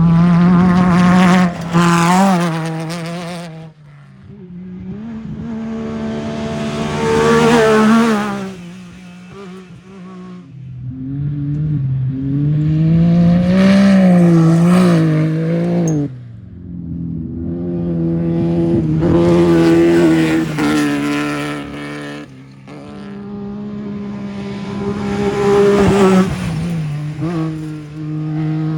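Off-road race vehicles passing one after another at speed, about five in turn. Each engine grows louder as it comes up, bends in pitch as it goes by, and then fades.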